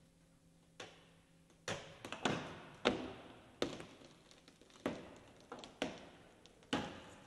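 Roof of a 2016 Chevrolet Camaro giving way under a hydraulic plate in a roof-strength crush test. About nine sharp pops and cracks from the bending roof structure come at irregular intervals, each ringing out briefly.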